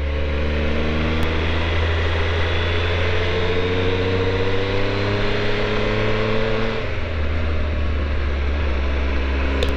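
Triumph Tiger 1200's three-cylinder engine pulling steadily, its note rising slowly, then dropping briefly about seven seconds in before it settles into a steady pull again.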